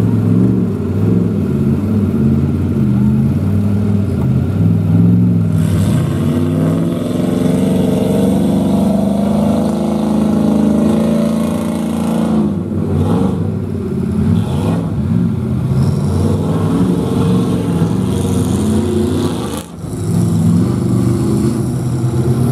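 Lifted mega trucks' engines revving and pulling hard off-road, the pitch rising and falling with the throttle; the sound drops away briefly near the end before picking up again.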